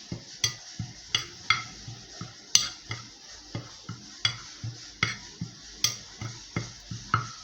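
A spoon stirring a mix of ground dried herbs and seeds in a bowl, knocking and scraping against the bowl in a steady rhythm of about two to three strokes a second. This is the mix being blended before honey is added.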